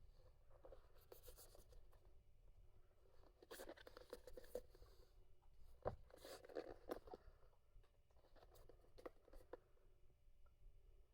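Faint rustling and light taps of perfume packaging being handled, with one sharper tap about six seconds in.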